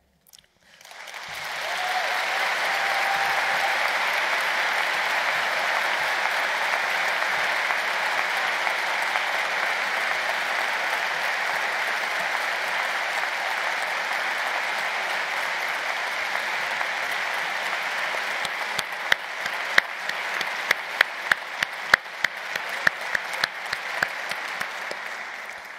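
Large audience applauding: the clapping builds within the first couple of seconds and holds steady. Over the last several seconds it thins into scattered individual claps and dies away.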